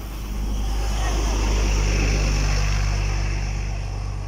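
A double-decker bus drives past at close range. Its engine and tyre noise swell to a peak about two seconds in, then fade as it moves away.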